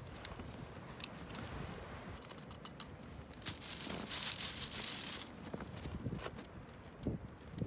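Handling noises of a camper at a mug and small camp stove: scattered light clicks and rustles, with a louder rustle of clothing about four seconds in, over a steady rush of strong wind.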